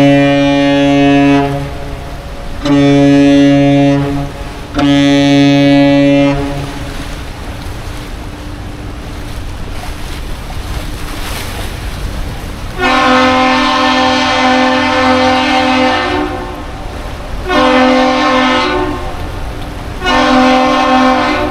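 Captain's salute on ship horns: the tail end of a long blast and then two short blasts from the departing tug-barge's horn, followed after a pause by a higher-pitched horn answering with one long and two short blasts, the Duluth Aerial Lift Bridge's return salute.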